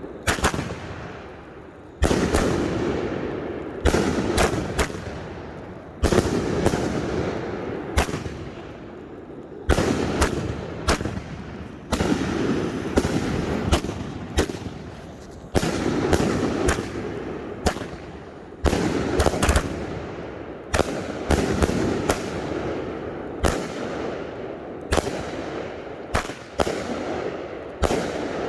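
Consumer firework cakes firing: sharp shots about every one to two seconds, with quick clusters here and there, each shot followed by a fading rumble.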